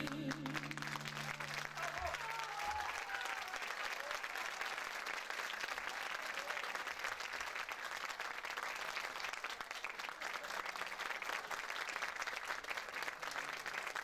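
Audience applauding steadily. The music's last note rings out under the clapping and dies away about three seconds in.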